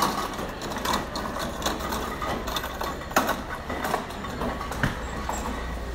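Clatter at a seafood grill stall: scattered sharp clicks and knocks over a steady, noisy din, with one sharper knock about three seconds in.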